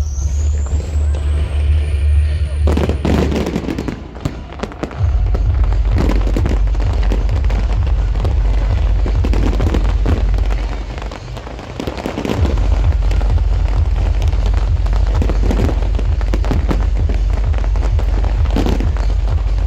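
Fireworks shells bursting every few seconds over loud electronic dance music with a heavy bass beat. A rising synth sweep ends about three seconds in, and the bass drops out twice, briefly.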